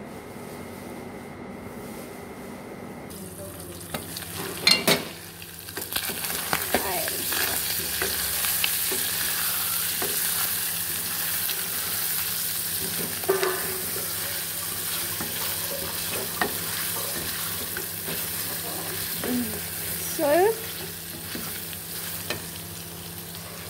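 Liver frying and sizzling in a metal pot while a spatula stirs and scrapes it, knocking against the pot. The sizzling starts a few seconds in, after a loud clatter, and runs steadily with scattered scrapes and short squeaks of the spatula on the pot.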